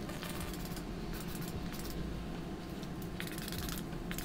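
Hand-held trigger spray bottle spritzing liquid onto twisted hair several times in short hissy bursts, over a steady low room hum.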